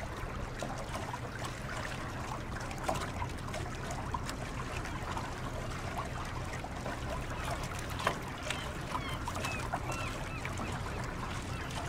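Pilot boat's engines running steadily with water rushing along the hull, heard from inside the wheelhouse, with scattered clicks and short high squeaks.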